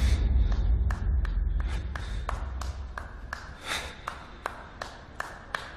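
Film sound design: a deep rumble dying away, then a steady run of sharp ringing ticks, about three a second, growing more distinct, with a brief swell of noise about halfway through.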